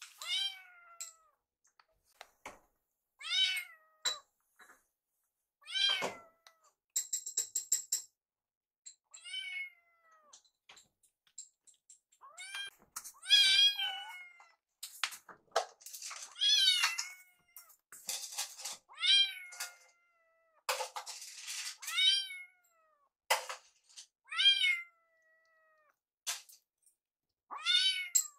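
Young kittens meowing again and again, high-pitched calls that drop in pitch at the end, about one every second or two.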